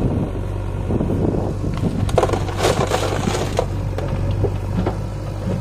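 Loose earth and clods tipping from a JCB backhoe loader's front bucket into a loaded tractor trolley: a crumbling, rattling pour from about two seconds in until about three and a half seconds. Under it runs the steady hum of idling diesel engines.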